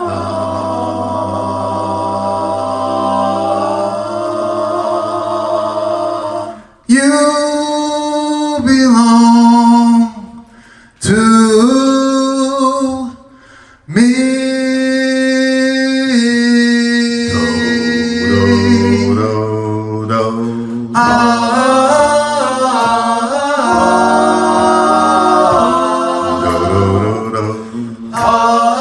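Male vocal group of five singing a cappella doo-wop in close harmony: long held chords, cut off and restarted with short breaks several times in the middle, then moving harmony lines near the end.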